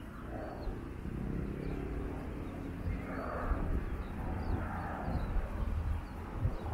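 Outdoor ambience: a steady low rumble with a few faint, short high chirps.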